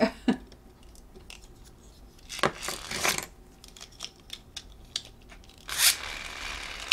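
Small plastic toy race car being handled: light clicks and rustling, with short scraping or tearing-like noises about two and a half seconds in and again near six seconds.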